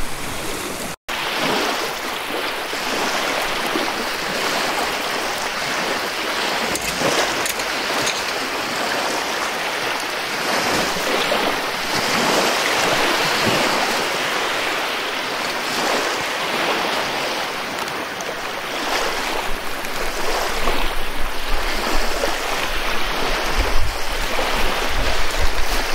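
Steady wash of waves on a shoreline, with wind gusting on the microphone and adding uneven low rumbles over the last several seconds. The sound cuts out for a split second about a second in.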